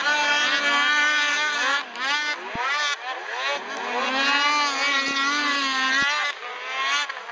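Racing snowmobile engines at high revs, their pitch rising and falling again and again as the sleds accelerate and pass.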